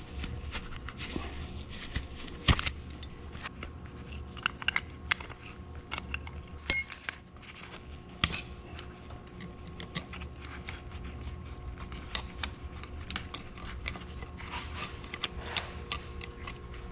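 Metal clinks and clanks of hand tools and a steel hydraulic line fitting being worked loose on a tractor's valve body. There is a sharp clank about two and a half seconds in and a louder ringing clink near seven seconds, over a steady low hum.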